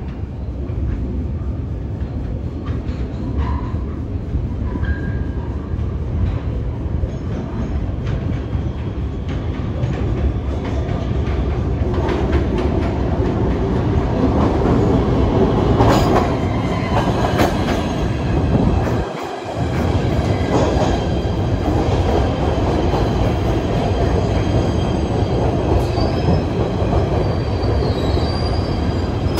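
PATH PA5 rapid-transit train running on the rails, a steady rumble with wheels clattering over rail joints and squealing on the rails. It grows louder about halfway through, dips briefly, and thin high wheel squeals come in near the end.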